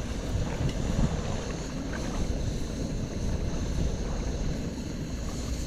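Wind rumbling steadily on the microphone, with a few faint sharp clicks from popcorn kernels popping in a kettle over a heater.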